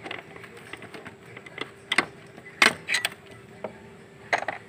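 Sharp, irregular metallic clinks and knocks of a socket wrench and extension being handled while loosening the EGR valve's mounting bolts, over a faint steady hum.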